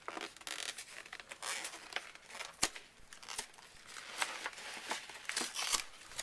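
A package being torn and crinkled open, with uneven rustling and a few sharp clicks or snaps.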